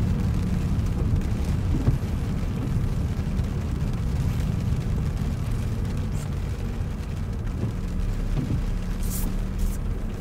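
Car driving at motorway speed in rain: a steady drone of engine and tyres on the road, with a few brief hisses near the end.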